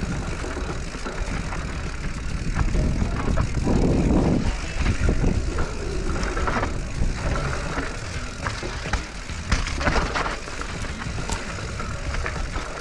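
Radon Swoop enduro mountain bike descending a rough dirt singletrack: tyres rolling over dirt, roots and stones, with the chain and frame rattling in sharp clicks over a steady rumble of wind on the microphone. The rattling is loudest about four seconds in and again near ten seconds.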